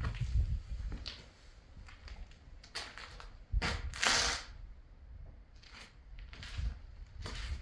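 Scattered footsteps and scuffs on a hard floor inside an empty room, the loudest scrape about four seconds in.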